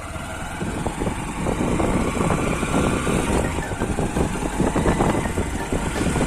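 Honda SP125's single-cylinder engine running as the motorcycle gets under way, growing louder over the first couple of seconds and then holding steady.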